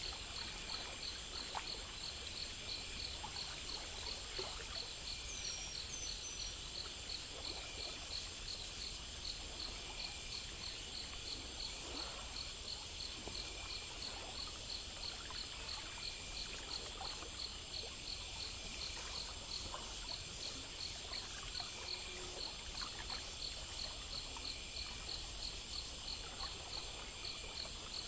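Night insects chirping in a steady, regular rhythm, about four chirps a second, with a constant high buzz, over a faint trickle of water.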